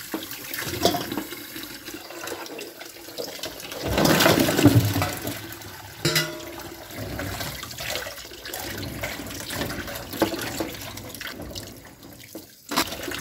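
Water splashing and running as green pine cones are rinsed by hand, with scattered knocks and clatters; the splashing is loudest for a moment about four seconds in.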